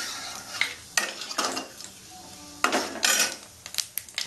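Flat spatula scraping and stirring against a kadai in several separate strokes, over whole cumin seeds sizzling in hot mustard oil as they are tempered.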